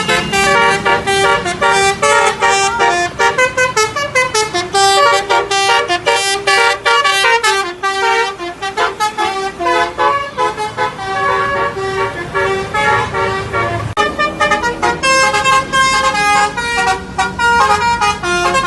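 Basuri, the multi-tone musical air horn of an Indonesian bus, playing a fast melody of short, loud horn notes one after another. The tune changes about fourteen seconds in.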